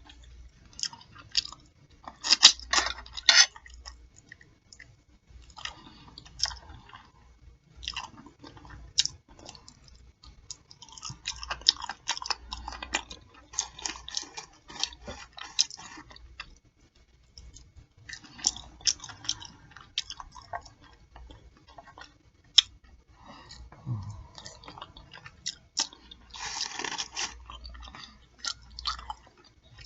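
Close-miked chewing and lip smacking on a pork chop plate: wet mouth clicks and crunches in irregular spells, busiest a few seconds in, through the middle and again near the end.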